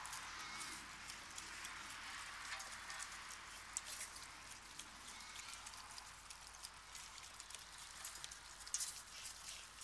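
Faint scattered clicks and ticks over a steady hiss: a pack of dogs eating from metal bowls, teeth and bowls clinking, with a few sharper clicks about four seconds in and near the end.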